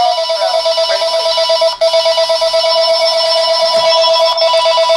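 Panasonic KX-TG6521 DECT 6.0 cordless phone ringing: a loud continuous electronic warbling ring tone, broken briefly about two seconds in. The owner hears anomalies in it and puts the phone acting up down to worn-out rechargeable batteries in the handset.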